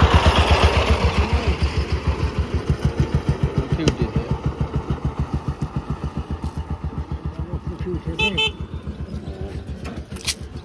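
A small single-cylinder motor vehicle's engine running with a fast, even thump, slowly fading away. A short horn toot about eight seconds in.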